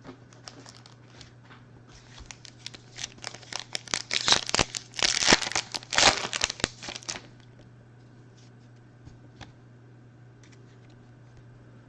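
Foil wrapper of a trading-card pack being torn open and crinkled: dense crackling for a few seconds in the middle, with a few light clicks of cards being handled before and after.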